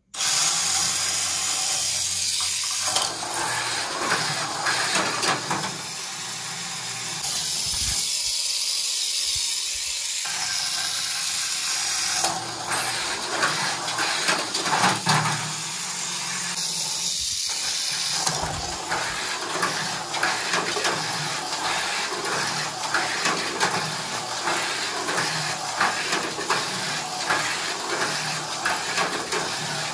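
A cheap Chowkin Mowang copy of a Tamiya Spin Cobra mini 4WD car runs laps on a plastic track. Its small front-mounted electric motor and gears whine steadily over a continuous clattering of the chassis and rollers against the track.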